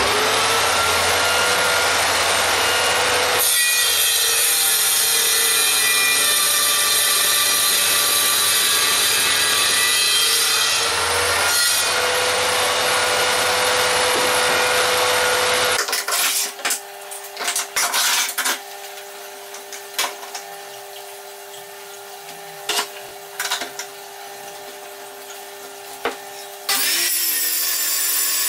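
Small table saw running and cutting wood, its motor holding a steady whine, until it falls quiet about halfway through. Next come scattered knocks as the wood and clamps are handled on the sled. Near the end the saw is switched on again and its motor whines up to speed.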